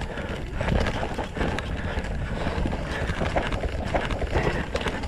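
Mountain bike descending a dirt forest singletrack at speed: wind buffeting the microphone, tyres running over the dirt, and frequent clicks and knocks from the bike rattling over bumps.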